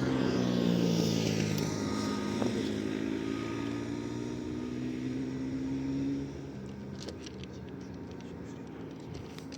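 A motor vehicle's engine running with a steady pitched hum that drifts slowly in pitch, then drops in level about six seconds in.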